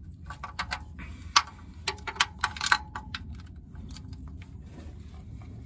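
Irregular metallic clicks and clinks of a wrench working on oil pan bolts, coming thick over the first three seconds, then only a low steady hum.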